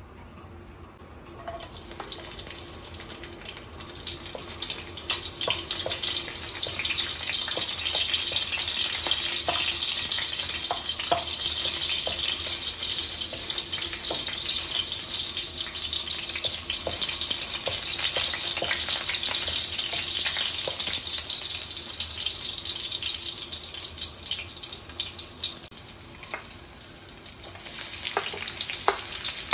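Garlic cloves frying in hot oil in an aluminium wok, a steady sizzle that builds over the first few seconds, with light knocks of a wooden spatula. Near the end the sizzle drops briefly, then comes back as sliced onions are pushed into the oil.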